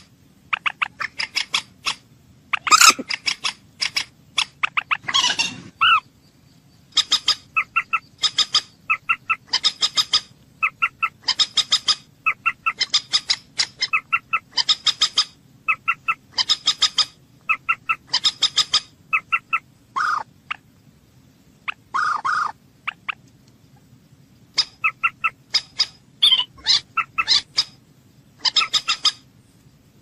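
Common moorhen calling: short bursts of quick, clipped notes, repeated over and over with brief pauses, and a couple of longer, lower calls about two-thirds of the way through.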